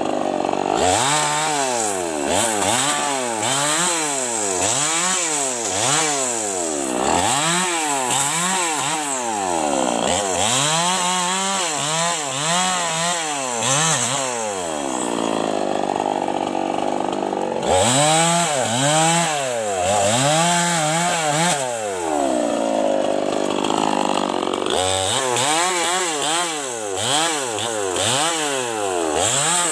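Small two-stroke chainsaw cutting up a felled tree's branches. The engine revs up and drops back about once a second between cuts, and twice it is held at full speed for a few seconds.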